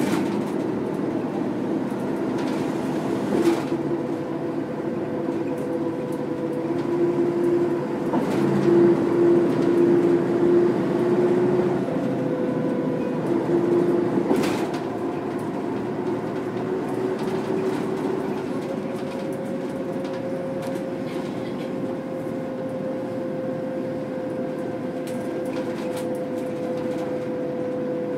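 Mercedes-Benz O405 city bus with its OM447H six-cylinder diesel and ZF 4HP500 four-speed automatic running under way: engine drone with steady gear whine and a few knocks. It grows louder for a few seconds about a third of the way in, then eases back to a steady level.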